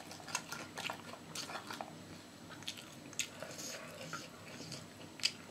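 Close-up mukbang eating: a person chewing with the mouth open, making a string of short, wet smacking clicks.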